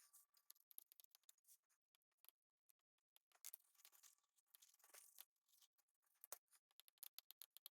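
Near silence with faint scratching and light clicks: fingers working a freshly glued foam surround down onto a subwoofer cone's edge. The scratching is a little busier around the middle.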